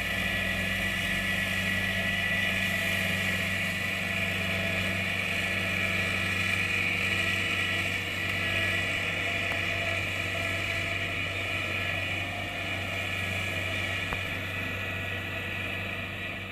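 Kubota DC-70 Plus rice combine harvester running steadily, a diesel engine hum with a steady high whine from its machinery over it, easing off slightly near the end.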